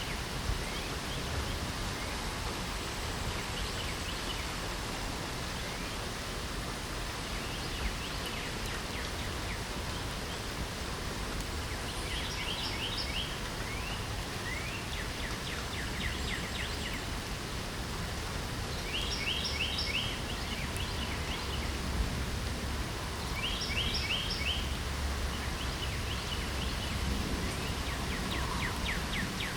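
Steady hiss of light rain, with birds singing short trilled phrases of quick repeated notes several times in the second half.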